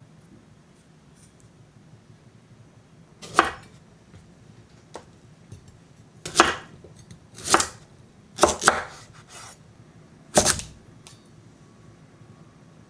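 A kitchen knife cutting through raw sweet potatoes and knocking on a wooden cutting board: about six separate cuts, the first about three seconds in, two of them in quick succession.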